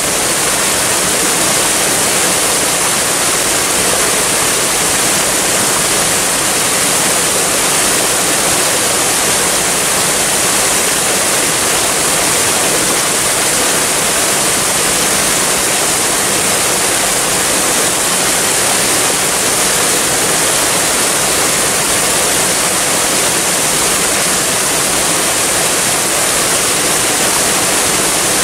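Waterfall: water falling and splashing, a steady rushing hiss that stays even throughout, brightest in the treble.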